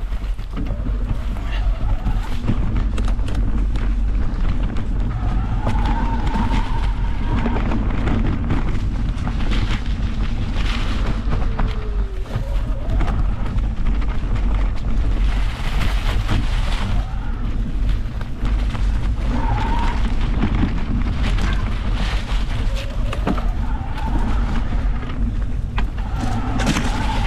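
Mountain bike riding over a dirt and leaf-covered forest trail: a steady rumble of tyres and wind on the camera, with frequent rattles and knocks from the bike over bumps and a few brief squeaks now and then.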